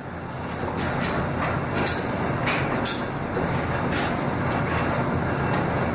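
Speed Queen front-loading washer filling with water at the start of a wash cycle: a steady rush of water with scattered clicks.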